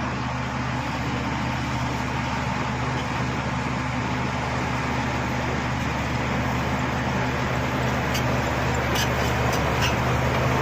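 Shantui bulldozer's diesel engine running steadily, with a few sharp ticks in the last couple of seconds.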